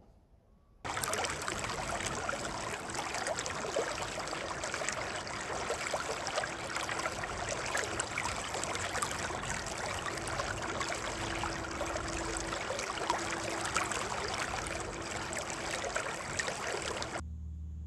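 Steady rush of the North Saskatchewan River running high with spring runoff, an even wash of water noise starting about a second in.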